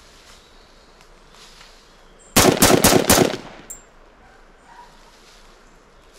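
A sudden burst of about five sharp cracks in quick succession lasting around a second, against faint woodland background.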